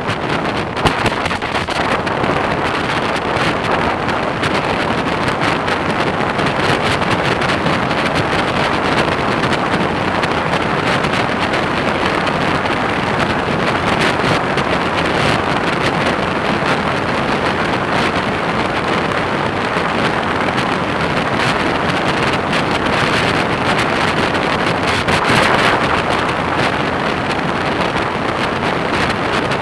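Wind rushing over the microphone of a camera on a moving motorcycle at road speed, a steady loud noise with the motorcycle's engine and tyre noise buried underneath.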